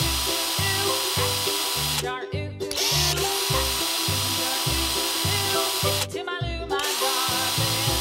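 Cartoon drill-truck hammer drill sound effect: a steady drilling noise that stops briefly about two seconds in and again about six seconds in. Underneath is background music with a steady bass beat of about two pulses a second.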